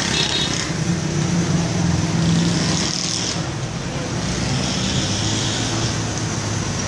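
Road traffic: the engines of cars and other motor vehicles running steadily.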